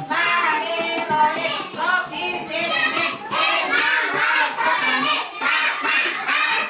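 A group of young children singing together, many high voices overlapping.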